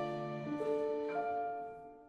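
Instrumental background music of held piano notes, with a couple of new notes struck in the first second, fading out toward the end.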